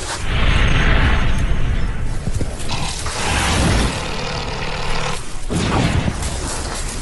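Honey badger scrabbling and digging in loose sandy soil, with two bursts of scratchy scuffling over deep low booms.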